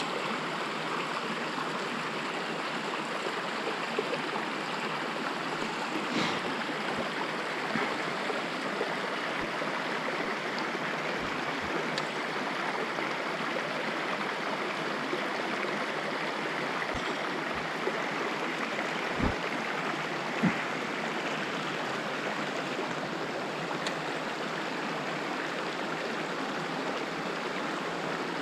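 Small shallow creek running steadily over stones at a ford, an even rush of water, with a few faint short knocks now and then.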